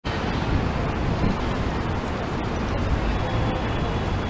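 Steady noise of heavy city street traffic: cars and taxis running with a constant low rumble.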